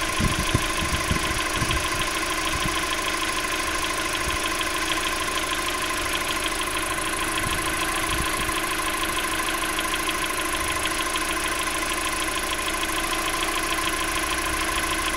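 Car engine idling, warmed up to the first mark on the temperature gauge, with a steady rapid knock running through it whose cause the owner cannot identify. A few dull low bumps in the first couple of seconds.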